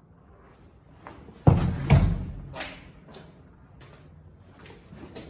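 A door being pushed against something blocking it from behind: two loud thuds about half a second apart, then a few lighter knocks, echoing in a large empty room.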